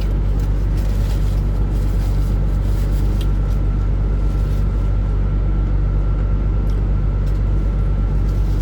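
A vehicle engine running steadily with a low, even rumble, a faint steady high tone over it, and a few faint clicks.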